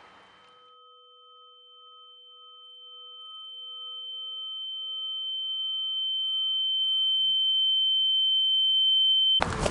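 A steady, high-pitched electronic tone that swells gradually from faint to loud, with fainter lower tones pulsing beneath it that fade away. It cuts off suddenly near the end.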